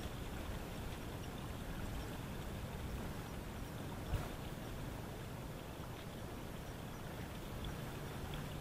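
Open-air ambience: a steady rushing noise, with one short thump about four seconds in. A low steady hum comes in near the end.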